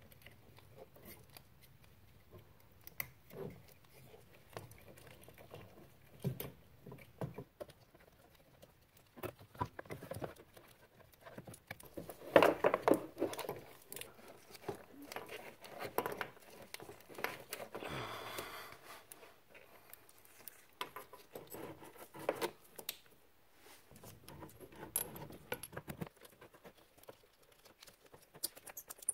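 Small handling noises as gloved hands fit a carburetor back onto a Honda TRX90 ATV engine: irregular metal clicks, taps and rubbing, with a louder cluster of knocks and rustling about twelve seconds in and a rustle lasting about a second a few seconds later.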